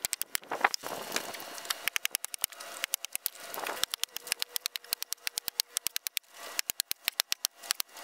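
Axe blows biting into tree limbs: many sharp knocks in quick, irregular succession, with a few short scraping noises between them.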